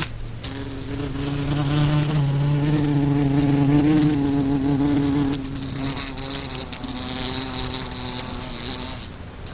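A fly buzzing in flight: a steady hum with a slightly wavering pitch that stops near the end.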